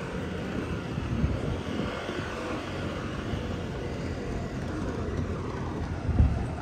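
A vehicle passing in street traffic, swelling to a peak about two seconds in and then fading away. A short low thump comes about six seconds in.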